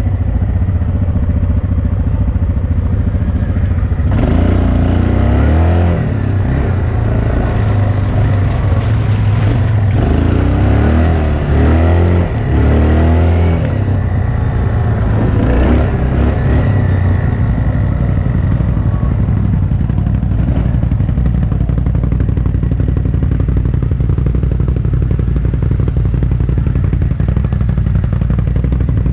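A 2005 Yamaha Bruin 350 4x4 ATV's single-cylinder four-stroke engine running under way, its pitch rising and falling again and again as the throttle is worked from about four seconds in until about sixteen seconds in, then settling to a steadier note.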